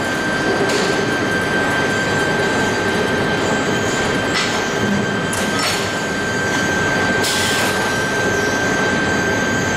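Automatic air duct production line running: a steady machine drone with a constant high tone, broken by a few short hisses.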